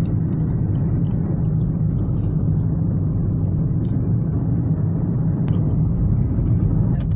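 Steady low rumble of a moving car's engine and tyres heard from inside the cabin, with one sharp click about five and a half seconds in.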